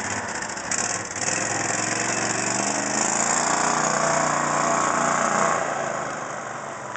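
Small engine of a golf cart built as a miniature tow truck, speeding up as it pulls away with its pitch climbing over a few seconds, then fading as it moves off.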